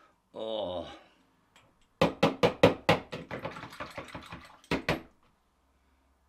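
Shaving brush working lather onto a stubbled face: a quick run of about a dozen loud, rhythmic scrubbing strokes, with a short squeak about half a second in.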